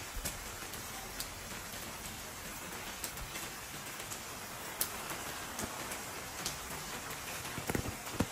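Steady rain falling on stone paving and roofs, with scattered sharp drip ticks. A few louder knocks come in near the end.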